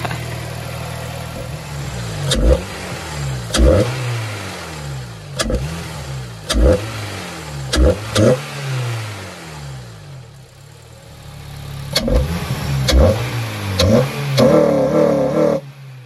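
Honda Accord Euro's 2.4-litre i-VTEC four-cylinder breathing through a freshly fitted Injen short ram intake with an open cone filter: it idles, then is blipped again and again, the revs jumping and falling back each time, with a short lull at idle in the middle and a briefly held rev near the end.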